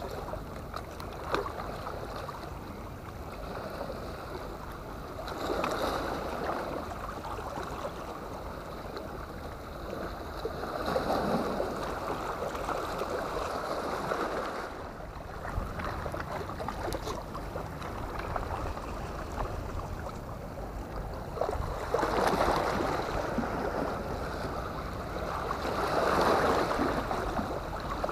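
Small waves washing and splashing against a rock breakwater, swelling every few seconds over a steady rush of water.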